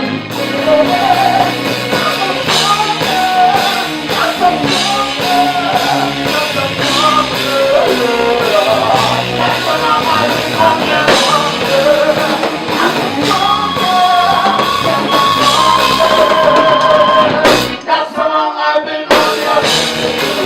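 Live rock band playing with drums and guitar under a singing voice. About two seconds before the end the low end drops out for a moment before the band comes back in.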